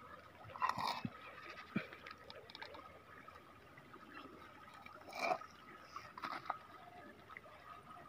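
Faint trickling water, with three short knocks or rustles: one about a second in and two more between about five and six and a half seconds.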